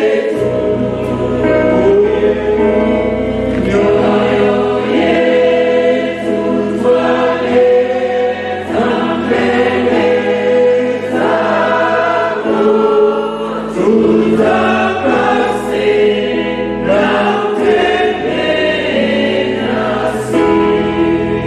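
A choir singing gospel music.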